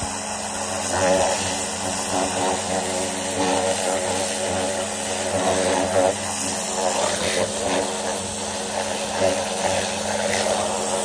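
Greenworks Pro 3000 psi electric pressure washer running, its motor and pump giving a steady hum under the hiss of the turbo-tip water jet blasting a paint pan, with the level swelling and dipping a little.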